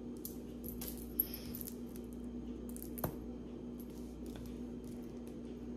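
Small pieces of jewelry being handled and sorted, with light rustling and ticking and two sharper clicks about one and three seconds in, over a steady low hum.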